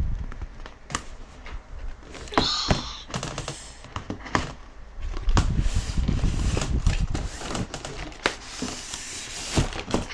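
A cardboard toy box being opened by hand: the lid and cardboard inserts sliding and rustling, with many light taps and knocks as the packaging is handled and a plastic tray is uncovered.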